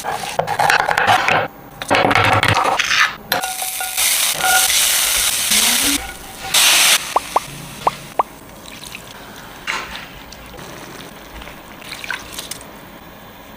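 Cooking in a pan: ingredients being stirred and added, with loud bursts of sizzling or pouring liquid in the first half and a few short clinks around the middle, then a quieter steady hiss.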